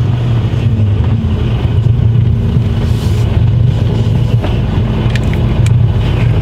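Mercedes-Benz Actros truck's diesel engine running at low speed as the truck rolls slowly into a parking space, a steady low hum heard from inside the cab.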